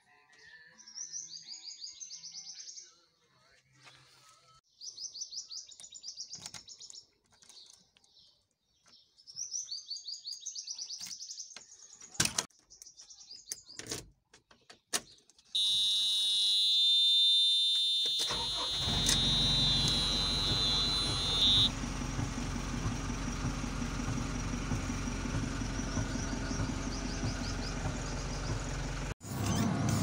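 Birds chirping faintly for the first dozen seconds. Then, as the key is turned in a JCB 3CX backhoe loader's ignition, a loud, steady, high-pitched warning buzzer sounds for about six seconds, and about 18 seconds in the diesel engine starts and settles into a steady idle.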